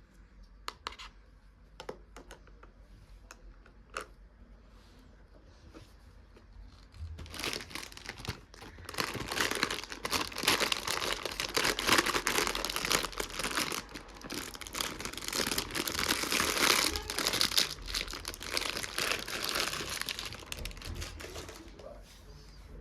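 A few light clicks, then from about seven seconds in a long stretch of dense crinkling and crumpling, like thin wrapping being handled and torn, which dies down near the end.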